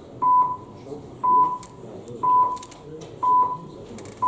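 Electronic voting system's countdown timer beeping: a short, even beep once a second, four times, while the vote is open. A low murmur of the council chamber runs beneath.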